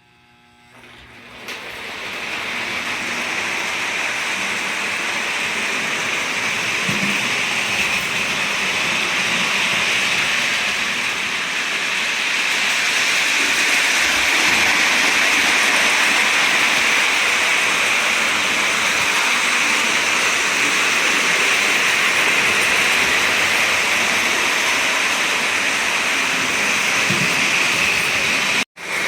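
O-gauge model train running on FastTrack: a steady rushing rumble of wheels and motor. It builds up over the first two seconds and breaks off for a moment near the end.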